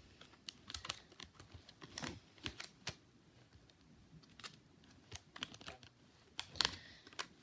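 Faint, irregular clicks and taps of Pokémon trading cards being handled and sorted.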